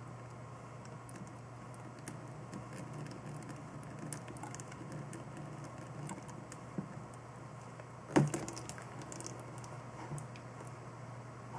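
Small clicks and taps of a plastic syringe and tubing being handled while coolant is syringed into a water-cooling loop, with one sharp knock about eight seconds in, over a steady low hum.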